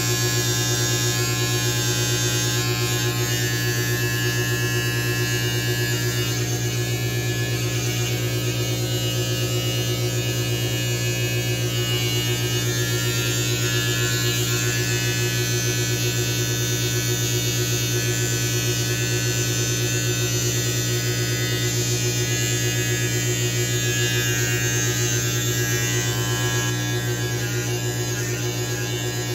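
Electric beard trimmer with a metal T-blade running with a steady buzz while it trims a beard along the neck and jaw. It gets a little quieter near the end.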